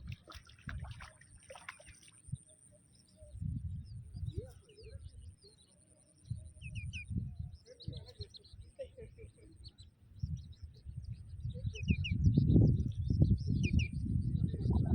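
Small birds chirping in short, scattered calls over a thin, steady high-pitched tone. A scratchy burst of noise comes in the first two seconds, and low rumbling noise swells about eleven seconds in and stays loud.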